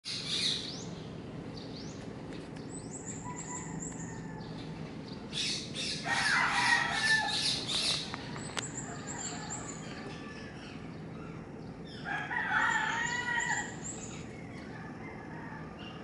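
A rooster crowing twice, each crow about two seconds long, with small birds giving high trilling chirps, over a faint steady low hum.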